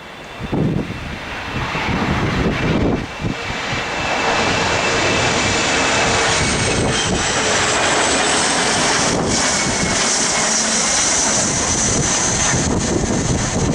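Embraer ERJ-145 regional jet's twin Rolls-Royce AE 3007 turbofans on landing approach, growing louder over the first few seconds into a steady loud rush with a high whine. Wind gusts buffet the microphone near the start.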